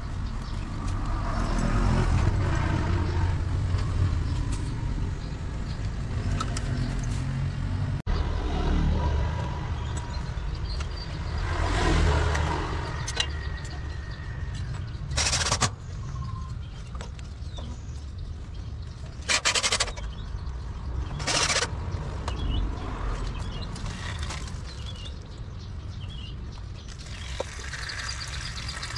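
Scraping and handling of tools and pipe fittings over a steady low rumble, with three short hissing bursts in the second half.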